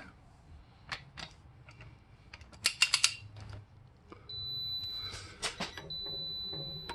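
Scattered metal clicks and rattles as a torque wrench is fitted to a car's lug nut and pulled to check its torque. About four seconds in, a steady high-pitched tone starts and holds, broken briefly near six seconds.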